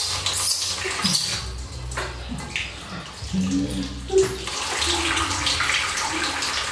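Tap water pouring from a wall faucet and splashing into a metal basin as a baby monkey is rinsed under the stream, with short hand splashes, the loudest about four seconds in.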